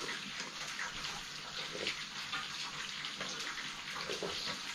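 Steady rushing water noise, like running or pouring water.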